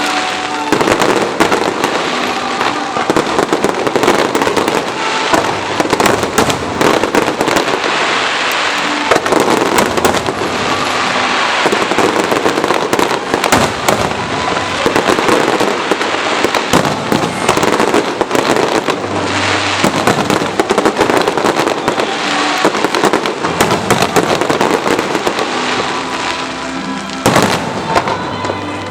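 Aerial fireworks display: a dense, continuous barrage of bursting shells with sharp reports following one after another, and music playing underneath.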